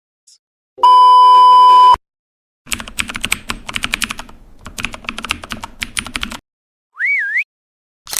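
A string of separate sound effects: first a steady high beep lasting about a second, like a censor bleep, then about four seconds of rapid computer-keyboard typing, then a short whistle that slides up, dips and rises again, and a brief click at the end.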